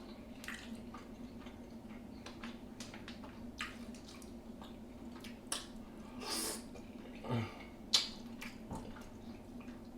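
Close-up eating sounds from a seafood boil in butter sauce: scattered wet smacks, squishes and sharp little clicks and snaps as the food is eaten.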